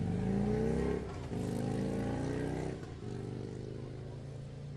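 A motor vehicle's engine accelerating through the gears: its pitch climbs, drops at a gear change about a second in, climbs again, drops at a second change near the three-second mark, then holds steady at cruising speed.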